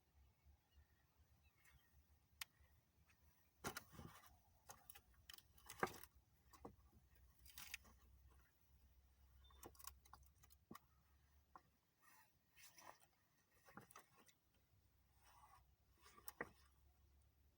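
Near silence broken by faint, scattered clicks and rustles, a little busier in the middle.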